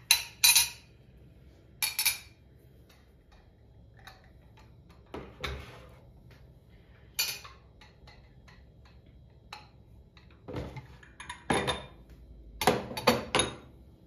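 Metal teaspoons, ceramic plates and glassware clinking as they are set down on plates and a bamboo serving tray: a series of separate sharp clinks, a pair at the start, a few scattered through the middle and a quick cluster near the end.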